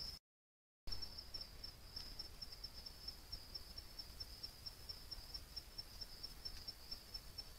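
Chirping night insects: a steady high-pitched chorus of evenly repeating pulses over a faint hiss, broken by a moment of dead silence near the start.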